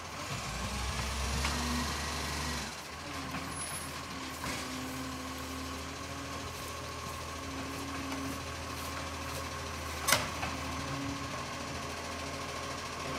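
Side-loading garbage truck's engine running, with a steady hydraulic whine as its arm lifts and empties a wheelie bin; the engine rumbles louder for the first couple of seconds. A single sharp bang about ten seconds in.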